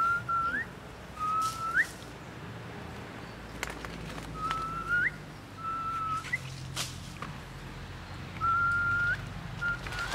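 A series of about six whistled notes, each held on one steady pitch and then sweeping quickly upward at the end, at irregular intervals. A couple of sharp clicks come in between.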